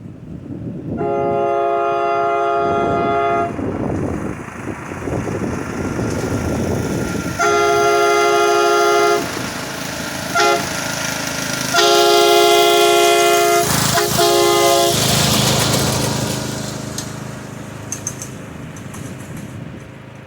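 Air-powered train horn sounding a chord of several notes in five blasts: three long blasts of about two seconds each, with a quick toot between the second and third and another just after the third. A low rumbling noise runs under it.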